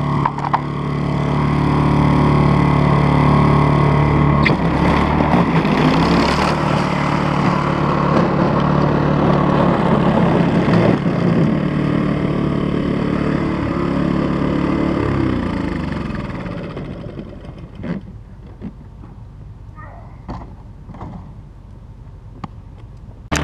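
Toro 518 ZR snowblower engine running steadily, then winding down in pitch to a stop about two-thirds of the way through. After that a quieter engine hum carries on beneath a few knocks.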